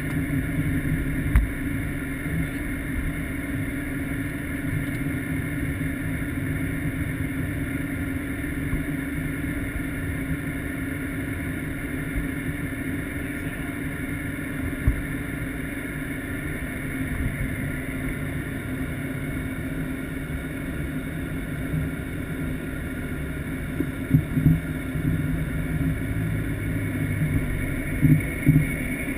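Aircraft engine running at a steady pitch, with a few short knocks near the end.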